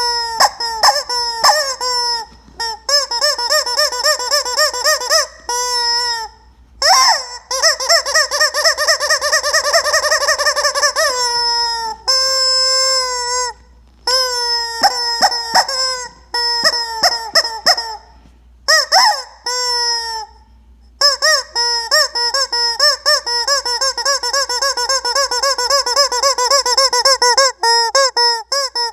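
Rubber chicken squeak toy squeezed over and over, letting out loud, high-pitched squawking honks with a rapid flutter. Some squawks are short and quick, others are held for several seconds, with short pauses between runs.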